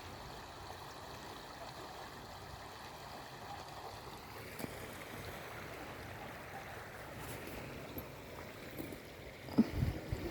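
River water flowing in a steady rush, with a few low bumps near the end.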